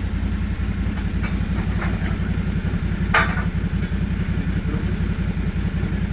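An engine idling steadily with an even low pulse, and a few knocks over it, the sharpest about three seconds in.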